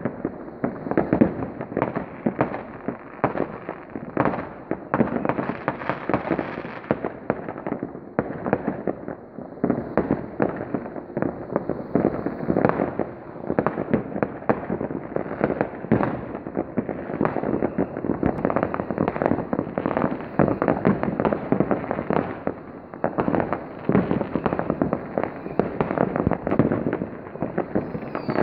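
Fireworks: a dense, continuous barrage of overlapping bangs and crackles from many rockets and firecrackers going off at once.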